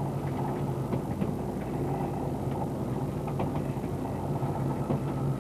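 Fishing boat's engine and trawl winch running steadily while the trawl is hauled in: a constant hum with scattered light clicks and rattles.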